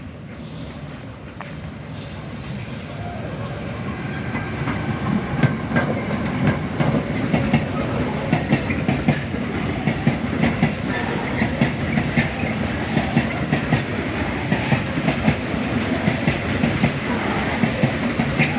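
Freight train of Eas open wagons rolling past, the wheels clacking over rail joints. It grows louder over the first five seconds and then stays steady, with many sharp clanks.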